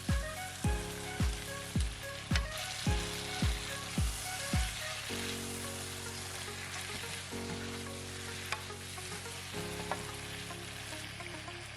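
Stir-fry sizzling in a hot pan, under background music with a steady bass beat that stops about five seconds in and gives way to held chords.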